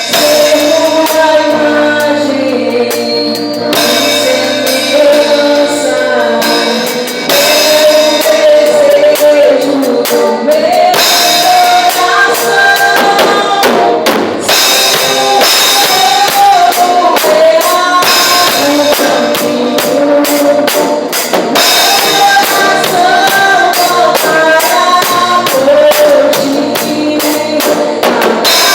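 Live worship music: a band with a drum kit keeping a steady beat under singing and melody instruments.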